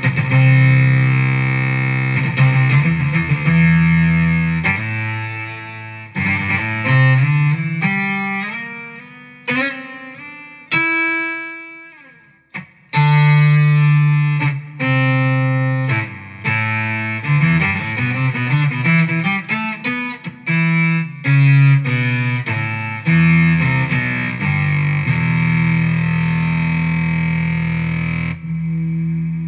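Guitar played through a BOSS SY-200 synthesizer pedal, giving distorted analog-style synth tones: held low notes, then quick stepping note runs, a brief drop almost to nothing a little after twelve seconds, then choppy repeated notes settling into long held tones.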